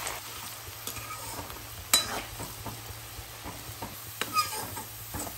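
Sliced onions sizzling steadily as they deep-fry in hot oil in a metal kadai, stirred with a metal slotted spoon. The spoon clinks sharply against the pan about two seconds in and knocks again more softly past the four-second mark.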